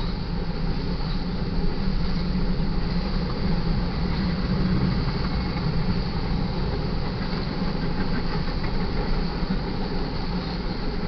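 Freight cars (covered hoppers and boxcars) rolling past on the main track, with a steady rumble and clatter of steel wheels on rail.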